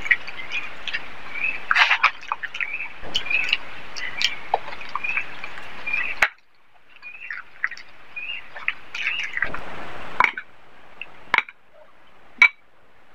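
Close-miked eating by hand: wet chewing, lip smacks and squelchy mouth clicks over rice and curry. The sound cuts off abruptly about six seconds in and resumes quieter, with sparser smacks and a few sharp clicks.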